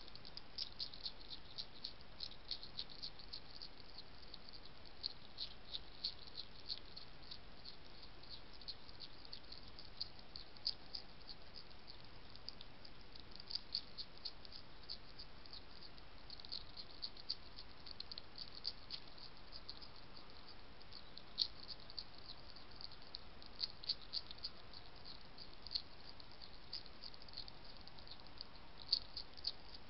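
European hedgehog crunching food: quick, irregular runs of sharp crunchy clicks with brief pauses between them, over a faint steady hiss.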